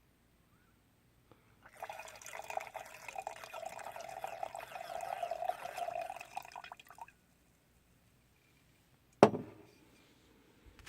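Liquid being poured into a container for about five seconds, then a single sharp knock about nine seconds in.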